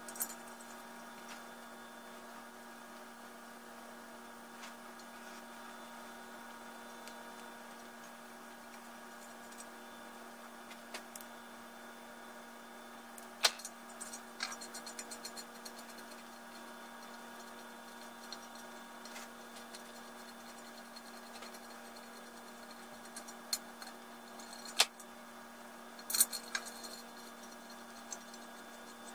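Sharp metallic clicks and clinks from hand tools and parts being handled on a bare cast-iron engine block, now and then: a few single clicks, a short run of rapid light clicks about halfway through, and a cluster near the end. A steady hum runs underneath.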